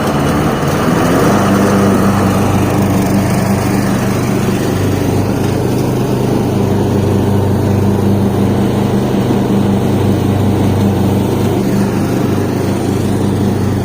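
Troy-Bilt Pony riding mower's engine running steadily with the cutting blades engaged on a newly replaced deck belt, settling into a steady hum about a second in as the mower cuts.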